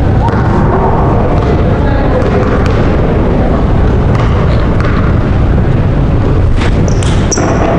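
Basketball gym crowd noise: scattered voices chattering over a loud, steady low rumble, with a few short high squeaks near the end as players start to move.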